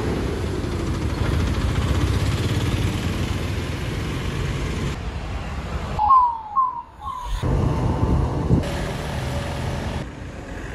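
Road traffic: motorcycles and other vehicles passing on a town road, a steady rumble of engines and tyres. About six seconds in the traffic noise drops away briefly and three short falling whistled calls are heard before the rumble returns.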